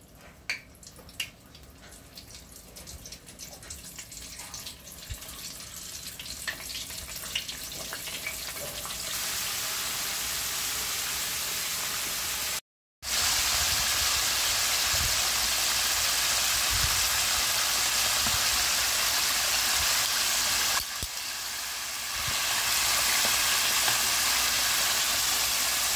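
Chicken pieces deep-frying in a pot of hot oil: a steady crackling sizzle that grows louder over the first several seconds and then holds. It cuts out briefly near the middle.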